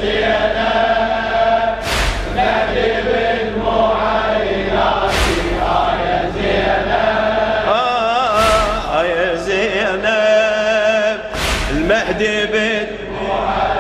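Men chanting a Shia latmiya lament in chorus, with a heavy unison strike about every three seconds from the mourners beating their chests.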